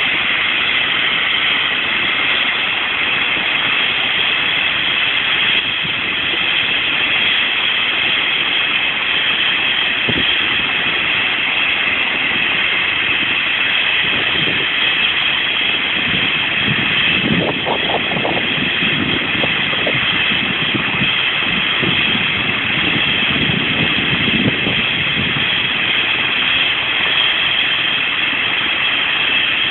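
Eurocopter EC135 air-ambulance helicopter running on the ground with its rotor turning, its turbines giving a steady high whine. Bursts of low rumble come in over it from about halfway to three-quarters through.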